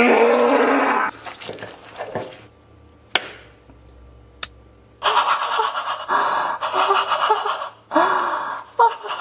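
Loud, breathy non-speech vocal sounds like gasps, in bursts with short breaks, and two sharp clicks in the quieter middle part.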